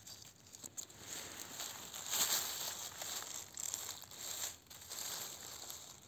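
Dry fallen leaves and pine needles rustling and crackling as a hand grips and works around a porcini mushroom in the forest litter, loudest about two seconds in.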